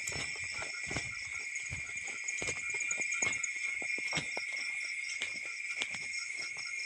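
Night chorus of crickets and other insects: a steady high drone with faster pulsing trills above it and a short call repeating a few times a second. Irregular footsteps and brushing through grass, with handling knocks, break through it.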